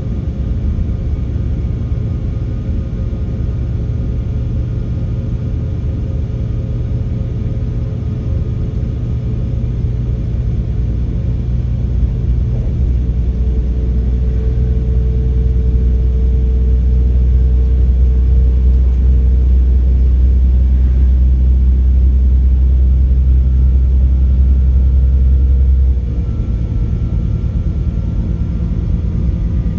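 Class 196 diesel multiple unit's MTU 6H 1800 inline-six diesel engines running under power with a steady low drone. The drone grows louder about twelve seconds in, with a faint turbo whistle over it, then drops suddenly about four seconds before the end.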